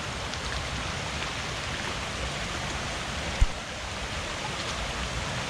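Swollen creek rushing steadily with a continuous, even noise of water, the stream running high after heavy tropical-storm rain. A single brief low thump a little past halfway.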